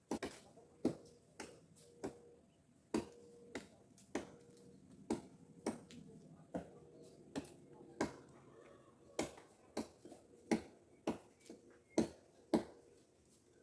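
Repeated sharp knocks, about one and a half a second and unevenly spaced, over a faint steady tone.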